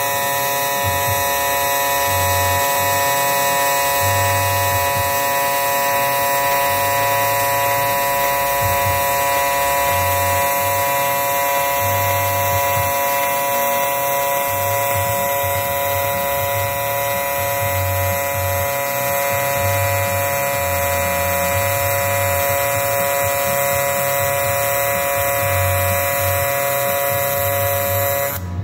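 AC TIG welding arc on an aluminium air-to-water intercooler, a steady high buzz with a lower uneven hum beneath it. The buzz cuts off abruptly near the end as the arc is broken.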